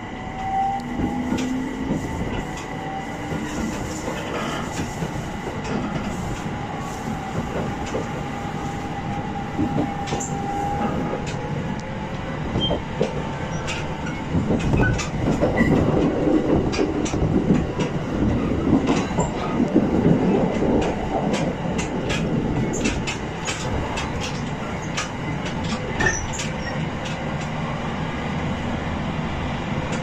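Electric local train accelerating to about 110 km/h, heard from inside the carriage. A steady rumble of wheels on rail carries a faint motor hum that creeps up in pitch, and from about halfway through, frequent clicks and clatter of wheels over rail joints come in, loudest in the middle of the run.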